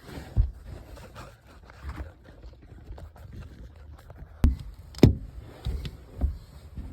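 Irregular knocks and clunks of hands-on handling, with the sharpest knocks about half a second in and again around four and a half and five seconds in, over a low rumble.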